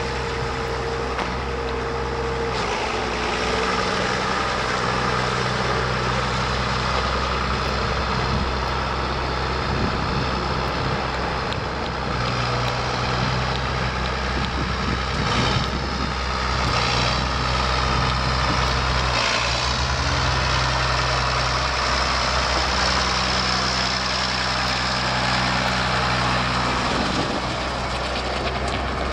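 John Deere 7600 tractor's six-cylinder diesel engine running steadily, its engine note shifting a few times.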